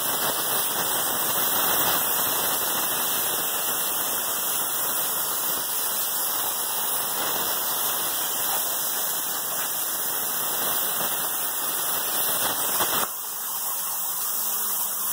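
CNC plasma cutter torch cutting sheet metal: a steady, loud hiss of the arc and air jet. Near the end the cut finishes and the level drops to a softer hiss.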